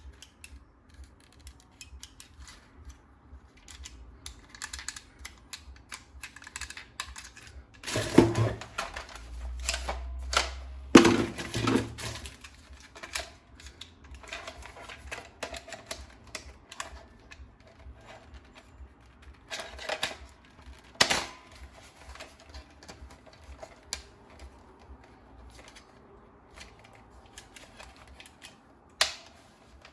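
Hard plastic parts of a toy gun clicking and rattling as it is handled. A louder burst of rattling with a low hum comes about a third of the way through.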